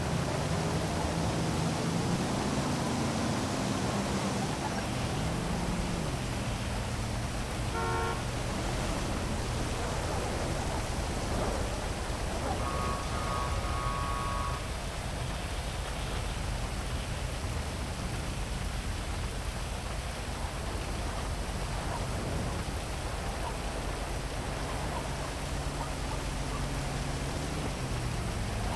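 Heavy rain falling steadily over city traffic, with the low hum of car engines passing. A short car horn sounds about eight seconds in, and a few quick horn toots come about halfway through.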